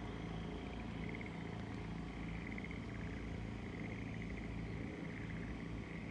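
Frogs calling from flooded rice paddies: short trilling calls repeating over and over, over a low steady hum.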